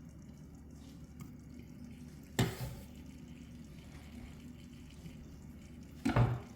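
Two short clattering knocks of a cooking utensil against the pan, about a second and a half in from the middle and near the end, over a steady low hum.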